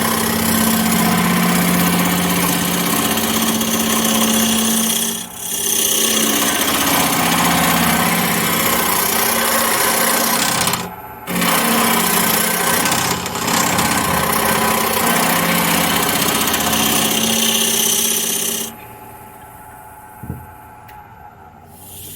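Turning scraper held against a dice cup spinning on a wood lathe, a steady rasping as it smooths the wood over the lathe's hum. The scraping breaks off briefly twice, then stops near the end, leaving the lathe running on its own.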